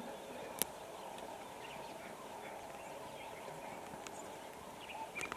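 Lions feeding on a buffalo carcass: steady tearing and chewing of meat, with one sharp crack about half a second in and a few clicks near the end.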